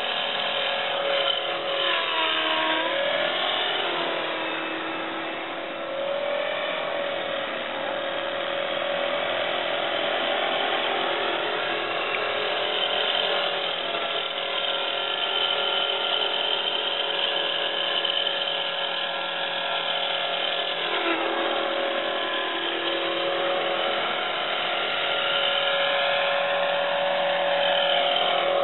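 Electric 450-size RC helicopter running in flight: a steady motor and gear whine with the rotor. Its pitch dips and recovers about two seconds in, again near six seconds and around twenty-one seconds, and sweeps back up near the end.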